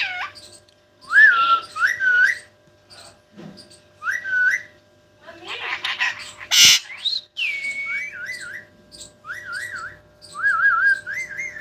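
White parrot whistling: a string of short, clear whistled phrases that rise and fall and waver, with gaps between them. A brief sharp burst comes about two-thirds of the way through, followed by a rising whistle and a held note.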